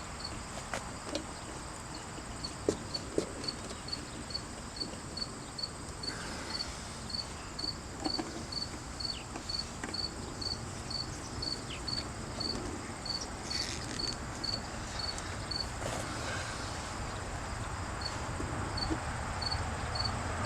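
A cricket chirping steadily, about two chirps a second, with a short pause near the end. Over it come scattered light clicks and knocks of a hose adapter being fitted onto a faucet.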